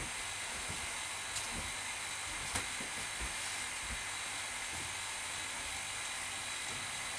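Steady hiss and low hum of the vacuum pump drawing on the resin-infusion bag, with a few light clicks as the resin feed tube and cup are handled.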